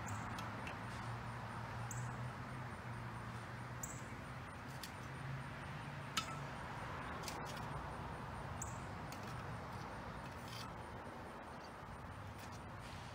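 Metal tongs picking up charcoal briquettes and setting them on a cast-iron Dutch oven lid: scattered faint clicks and clinks, with one sharper clink about six seconds in, over a steady low hum.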